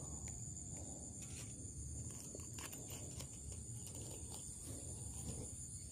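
Faint clicks and rustles of hands working a hook out of a snakehead held in a metal lip grip, over a steady high buzz of insects in the grass.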